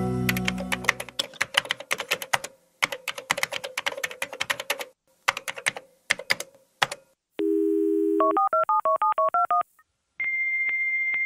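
Dial-up modem connecting over a phone line. Several seconds of rapid clicking come first, then a dial tone and a quick run of touch-tone (DTMF) dialing. Near the end a steady high answer tone comes from the far end.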